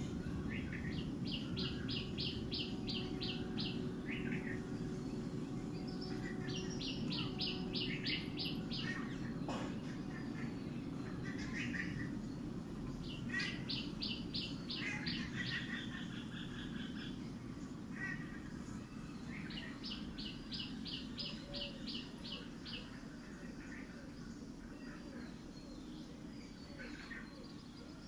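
A bird calling in four series of about ten clipped, high notes, three or four a second, the series roughly six seconds apart, with softer chirps between them. A steady low rumble of outdoor background noise runs underneath.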